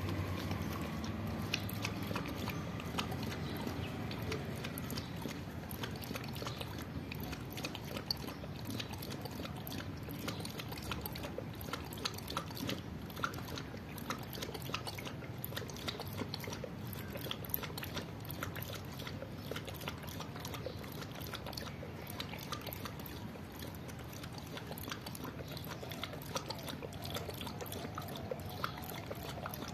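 A dog lapping water from a stainless steel bowl: a steady run of quick, wet laps and small splashes.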